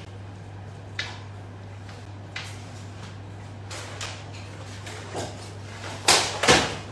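Training longswords striking and clattering in a sparring exchange: scattered light knocks of blade contact and footwork, then two loud strikes about half a second apart near the end as the fencers close. This looks like a double hit, with both fencers landing.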